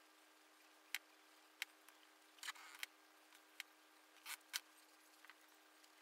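Small paintbrush tapping and stroking on a stretched canvas: scattered short clicks and a few brief scratchy strokes, over a faint steady hum.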